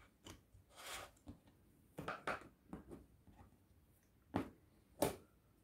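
Faint handling sounds of a plastic round cookie cutter and rolled sugar paste on a cutting mat: soft rustles and a few light taps, the two clearest short knocks near the end.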